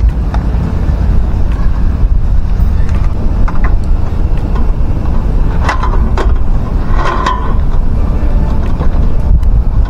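A steady low rumble, with a few sharp metallic clacks and rattles about six and seven seconds in as a folding camp table is unfolded and set up.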